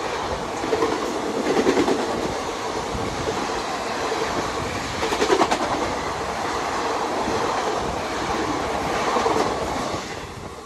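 Express train running past at about 100 km/h, its wheels clattering over the rail joints with a steady rush of noise. The noise drops away near the end as the train clears.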